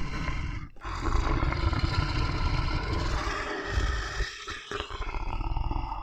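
Deep dinosaur roar sound effects: one long roar from about a second in, then a second, rougher roar with a pulsing growl near the end.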